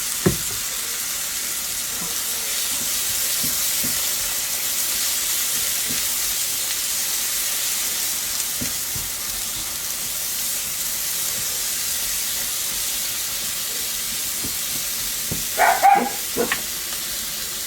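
Onions and garlic sizzling in a hot skillet: a steady frying hiss with a few light clicks from stirring.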